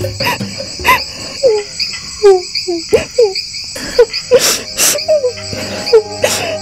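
Crickets chirping steadily at night, with a woman sobbing in short falling cries and catching breaths.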